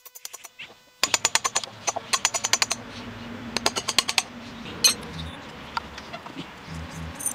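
Hand chisel paring the end of a wooden peg held in a steel bench vise: three short runs of rapid crackling clicks as the blade cuts through the wood, then a single sharp click and a few dull knocks as the peg is handled.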